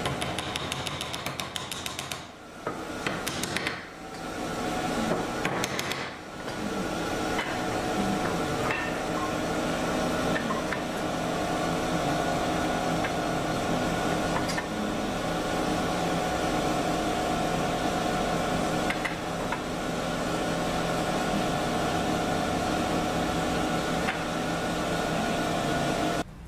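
Wooden stool legs and cross-pieces knocked and tapped together as the joints are fitted, a few separate knocks over a steady background drone.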